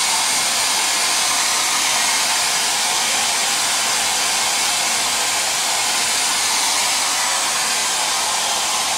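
Handheld hair dryer running steadily, an even airy hiss with little low end, blowing on a freshly applied coat of water-based leather dye to dry it.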